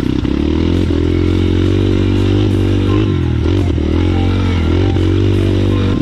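Trail motorcycle engine running while ridden along a dirt track, its revs dipping and picking up again a few times.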